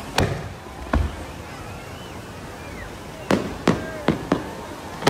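Fireworks bursting overhead in a series of sharp bangs: two in the first second, then a quick run of four from about three seconds in.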